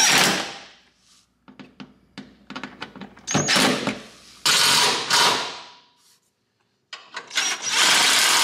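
Cordless impact driver running in short bursts as it drives the skid-plate screws tight: four bursts, the longest near the end, with a run of light rapid clicks between the first two.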